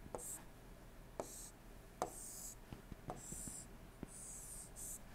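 Faint stylus strokes on a tablet while lines are drawn: about six light taps as the tip touches down, each followed by a short, high, scratchy hiss as it slides.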